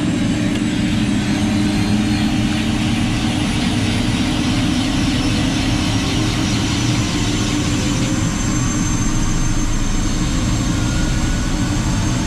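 Helicopter's engine and rotor running in a steady loud drone.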